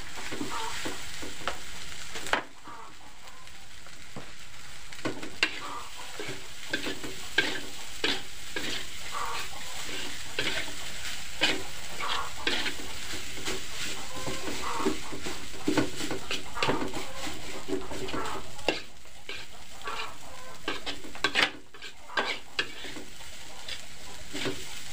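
Fried rice sizzling in a large aluminium wok while a metal spatula stirs it, scraping and tapping against the pan many times over a steady frying hiss.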